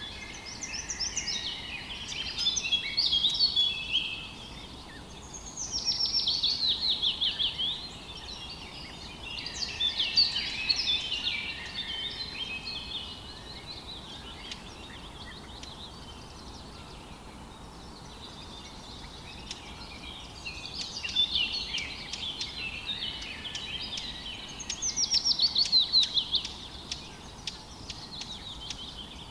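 Songbirds singing in phrases of one to three seconds, several of them quick runs of falling notes, with a quieter stretch in the middle. Underneath is a steady faint hiss of running river water.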